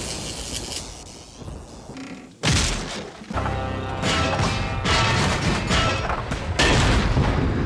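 Cartoon sound effects: a loud crash about two and a half seconds in, followed by pitched musical stings punctuated by several sharp hits.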